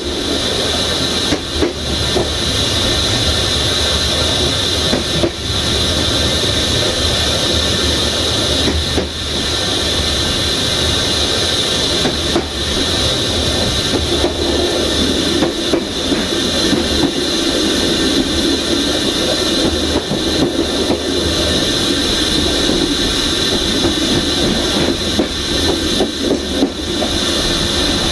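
Passenger train running along the track, heard from the rear of the train: a steady rumble and hiss of wheels on rails, with occasional knocks over rail joints.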